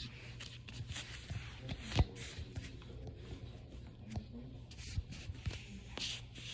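Clothing rustle and handling noise with scattered light knocks as someone moves and kneels onto a yoga mat, the loudest knock about two seconds in, over a low steady hum.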